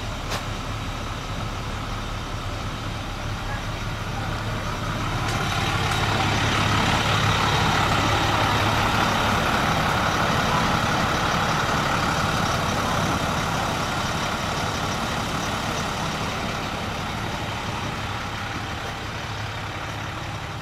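An engine passing by: a steady low hum that grows louder from about five seconds in, is loudest a few seconds later, then slowly fades.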